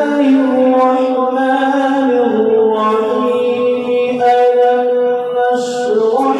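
A man reciting the Quran in the melodic tajweed style, holding long drawn-out notes with slow ornamented turns of pitch. The pitch steps down about two seconds in and climbs again near the end.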